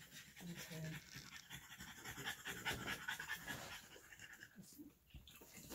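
A dog panting, faint and steady.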